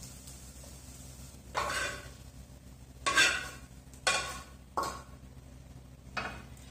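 Spoon scraping fried chorizo and sausage out of a frying pan onto a plate: five short scrapes, about a second apart.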